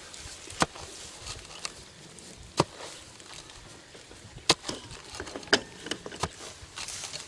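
Short-handled hoe chopping into damp soil, digging out earth with about five sharp strikes at uneven intervals and a few lighter scrapes between them.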